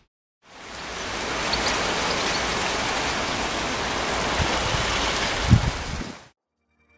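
Heavy rain pouring down in a steady hiss, fading in at the start and cutting off suddenly near the end. A low thump sounds about five and a half seconds in.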